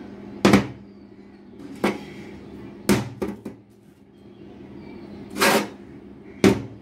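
A magnetic arrow welding holder is set down and snapped onto a steel workbench and the steel pieces on it, giving about seven sharp knocks at uneven intervals, with a longer one toward the end.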